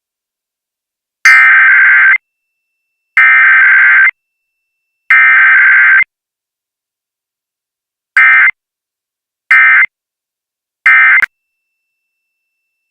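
Emergency Alert System digital data bursts, the buzzy two-tone warble of the SAME code. Three header bursts of about a second each come about two seconds apart, then after a pause three short end-of-message bursts, with no attention tone between them.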